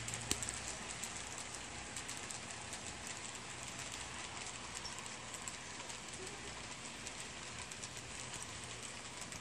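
HO scale model freight cars rolling along the track: a steady crackling hiss dotted with fine clicks of the small metal wheels on the rails, with one sharper click about a third of a second in.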